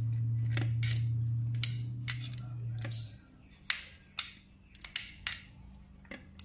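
Chopsticks clicking against a plate while tossing a heap of dry spicy instant noodles, a sharp click every half second or so. A low steady hum, the loudest sound, runs under the first three seconds and then stops.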